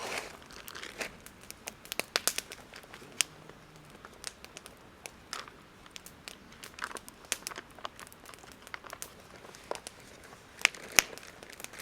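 Campfire crackling, with irregular sharp pops and snaps from the burning wood; the two loudest pops come near the end.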